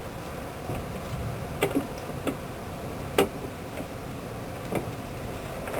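A few sharp clicks and light knocks at irregular intervals, the loudest a little past the middle, from parts being handled and fitted together while the landing-gear jackscrew is being lubricated, over a steady low rumble.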